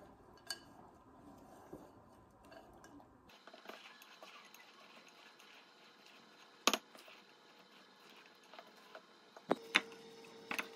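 Spatula working thick oatmeal cookie dough in a glass mixing bowl: faint scraping with scattered clinks and knocks against the glass, the sharpest about two-thirds of the way through and a few more near the end.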